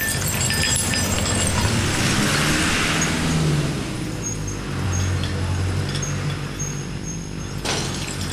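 A motor vehicle's engine running, a low wavering hum, with road noise over it.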